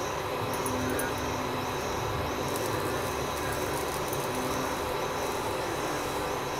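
Crickets chirping in an even rhythm, about two chirps a second, over a constant rushing background noise.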